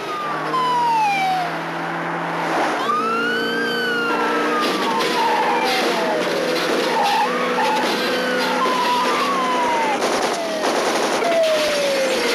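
Police sirens wailing, their pitch repeatedly rising and falling and overlapping, over cars at speed.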